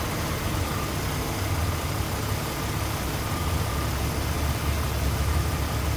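2002 Jeep Grand Cherokee WJ engine idling steadily, warming up so the transmission fluid can be checked hot and in neutral.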